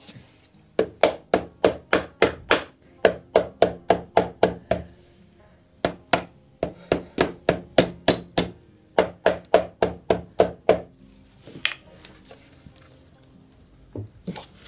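Rapid hammer blows on a stuck sprocket cover of a 2001 Yamaha Fazer, about three to four a second, in three runs, with a few single knocks near the end; the part will not come free.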